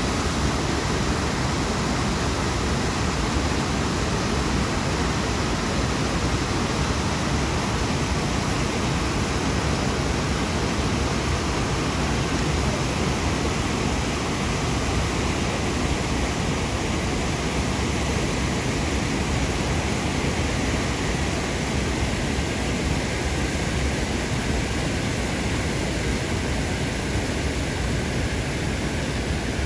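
Water rushing steadily over Brooks Falls and through the river below, a continuous even wash of white-water noise.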